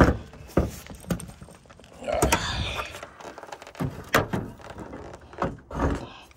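A series of thunks and clunks from a car's body, the door and hood being opened to reach the engine bay. The loudest knock comes right at the start; more thumps and a short rattle follow every second or so.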